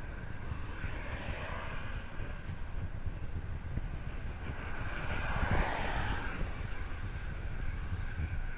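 Wind buffeting the microphone of a camera carried on a road cyclist at speed, a steady low rumble. About five seconds in a passing car adds a hiss that swells and fades.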